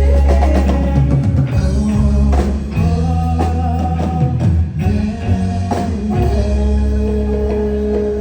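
Live rock band playing, with electric bass, drum kit and guitar: held chords and drum hits, settling into one long sustained chord near the end.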